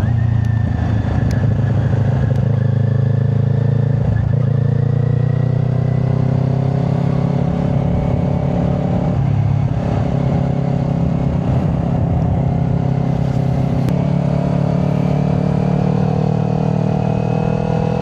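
Kawasaki Ninja 400's parallel-twin engine, fitted with a Yoshimura exhaust, running steadily at cruising revs while riding. The pitch dips briefly about halfway through and rises a little near the end.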